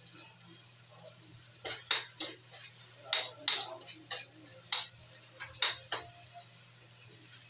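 Metal spatula clinking and scraping against a metal wok while stirring chicken pieces: a string of about a dozen sharp clinks, starting a little under two seconds in and stopping about six seconds in.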